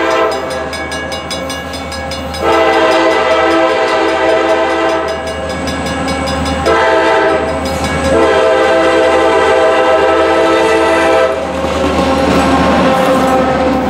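A CSX SD40-2 diesel locomotive's air horn blowing the grade-crossing signal, several notes sounding together as a chord: the end of one long blast, then a long, a short and a final long blast. Near the end the locomotive passes close by, its diesel engine and the wheels on the rails running loud.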